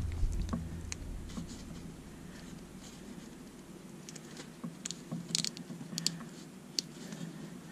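Faint rustling and small clicks of fingers sliding heat-shrink tubing along thin wires and over a small ESC board, with a few sharper clicks in the second half.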